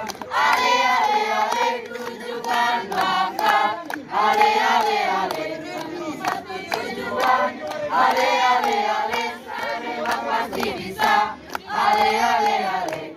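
A group of teenagers singing together in chorus, mixed voices in unison.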